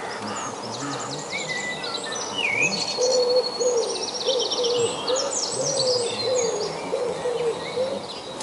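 Birds singing: several small songbirds trilling and chirping high, with a lower wavering call running from about three seconds in for some four seconds.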